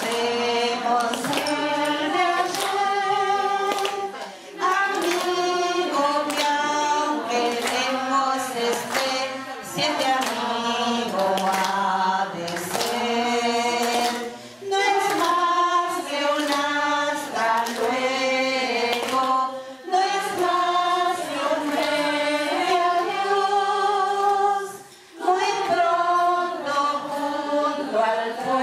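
A group of women singing together unaccompanied, with hand claps keeping the beat. The singing breaks off briefly three times, between phrases.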